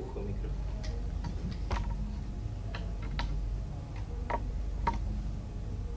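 Light, irregular clicks and taps, about seven in all, from a small box being handled on a table, over a low steady hum.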